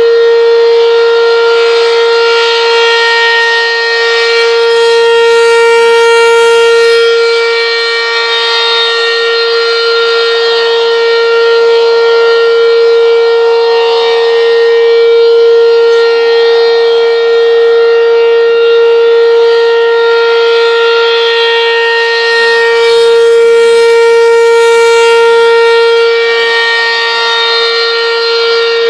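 Outdoor tornado warning siren sounding one loud, steady, unwavering tone. Its volume swells and fades, louder twice about 18 seconds apart.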